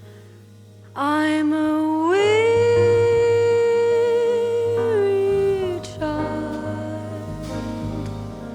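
Slow jazz ballad performance: a melody note enters about a second in, slides up, is held with vibrato and falls away after about five seconds, over soft, steady band accompaniment.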